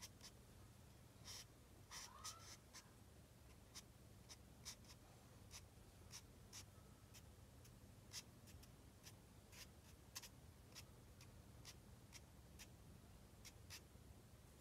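Tip of a black calligraphy marker scratching short, quick dashes onto paper, about two strokes a second, faint.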